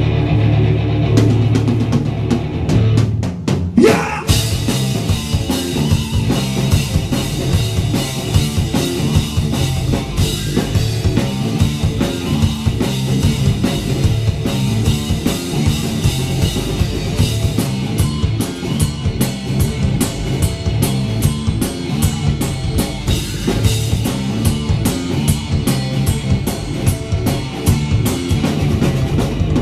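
A live rock band plays a song: distorted electric guitar, bass guitar and a drum kit with bass drum and snare. About four seconds in, a quick rising glide leads into the full band with driving drums.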